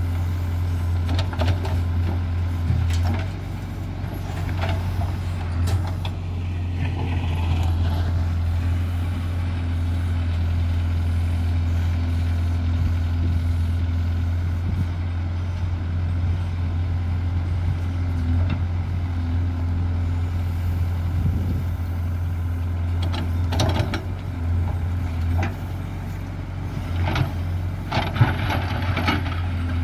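JCB 3DX backhoe loader's diesel engine running steadily under working load as the backhoe arm digs and swings, with short knocks and scrapes from the bucket in the soil, most frequent near the end.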